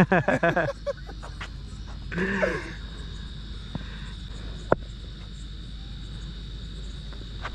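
A loud shout at the start and a shorter call about two seconds in, over a steady high-pitched insect drone; a single sharp knock comes a little past halfway.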